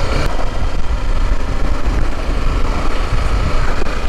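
Motorcycle riding along a dirt road: the engine runs under a rushing, uneven wind noise.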